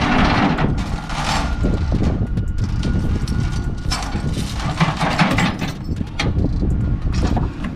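Steel load chain rattling and scraping across a stack of flat steel plates on a flatbed trailer as it is pulled over the load. The loudest stretches come at the start and again about four seconds in, over a steady low rumble.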